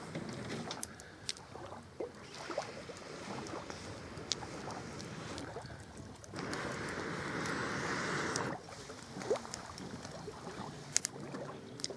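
Long breaths blown through a metal fire-blowing pipe into a small wood and paper campfire, a rush of air that is loudest for about two seconds starting about six seconds in, with sharp crackles and snaps from the fire as it catches.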